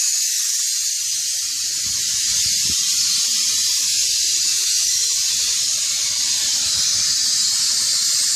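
A steady, loud high hiss, with faint irregular low rumbling from about a second in.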